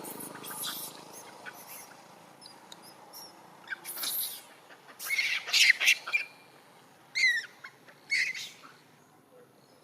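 Monkeys giving short, high-pitched squealing calls that bend in pitch: a burst of several calls in quick succession, the loudest run about five seconds in, then two single squeals about a second apart.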